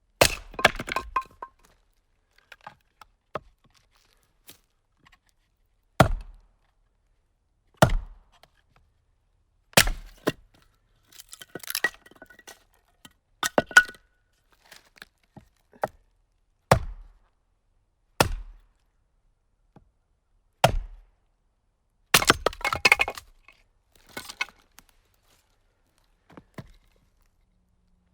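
Axe splitting firewood: a series of sharp single cracks, one every one to four seconds, as the blade strikes and splits the logs. Three times there is a short burst of rapid knocking and clinking of wood.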